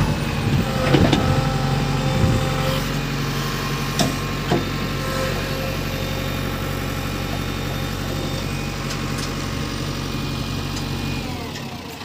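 JCB 3DX backhoe loader's diesel engine running steadily at working speed while the backhoe is operated, with two sharp metal knocks about four seconds in. Near the end the engine speed drops and it runs quieter.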